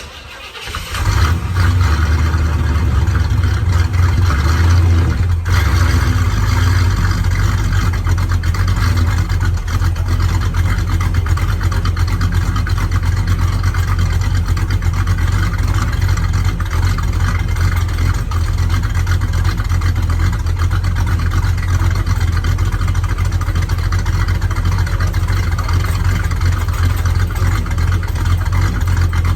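Classic Chevrolet Monte Carlo's engine running steadily with a loud, low rumble, coming in suddenly about a second in.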